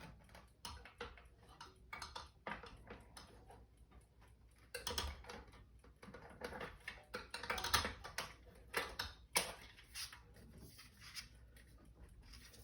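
Irregular clicks, taps and light rattles of a window shade's headrail being pushed and worked into its plastic mounting clips, with a few louder clattering stretches in the middle as he tries to get it to click in.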